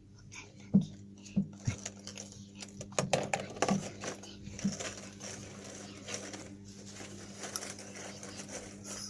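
A few light knocks and clicks of small hard objects being handled, most of them about a second in and around three to four seconds in, over a steady low hum.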